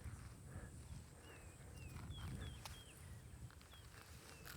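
Faint birds chirping: short calls that slide downward, a few a second in small groups, over a low rumble. A couple of soft knocks, about a second in and near the end.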